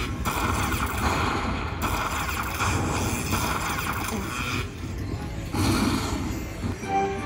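Aristocrat Lightning Cash Best Bet slot machine playing its win count-up sound effects in loud, noisy stretches of about a second and a half each, with a short break about two-thirds of the way through, as a bonus win total climbs.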